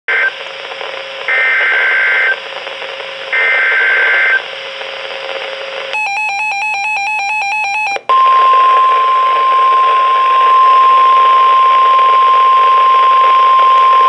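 NOAA Weather Radio alert coming through a Reecom weather alert radio's speaker over radio hiss. First come three short warbling digital data bursts about a second apart, the SAME header that codes the alert. Then about two seconds of rapid electronic beeping, and from about eight seconds in the steady 1050 Hz warning alarm tone, held.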